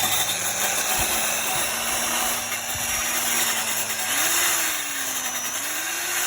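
Power drill spinning a wire brush against metal, scrubbing the brake dust shield behind the wheel hub clean: a steady harsh scrubbing over the motor's hum. The motor's pitch rises about four seconds in, sags, then rises again near the end.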